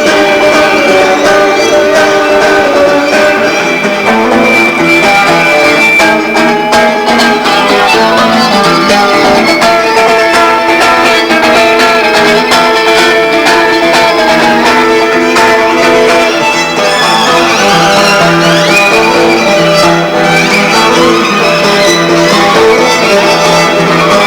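Violin and guitar playing instrumental music together, the violin holding long bowed notes over guitar.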